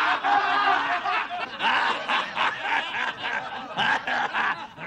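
A man laughing heartily in a run of short bursts.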